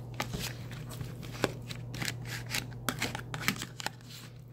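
A spoon stirring spiralized vegetables and ranch dressing in a bowl: irregular scraping clicks against the bowl and soft wet rustles, over a steady low hum.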